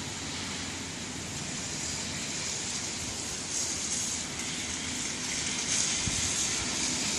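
Rain and wind of a thunderstorm: a steady hiss that swells louder in gusts through the second half.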